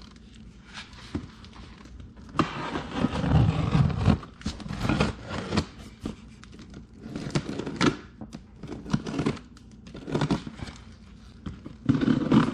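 Shipping box being unpacked by hand: irregular rustling, crinkling and tearing of cardboard and packing material, with scrapes and sharp knocks.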